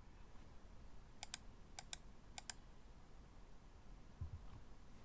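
Keystrokes on a Ginkgo65 keyboard with stock Cherry MX Black Clear-Top ("Nixie") linear switches on an aluminium plate, gasket-mounted, under GMK keycaps: three key presses about half a second apart, each a quick pair of clacks.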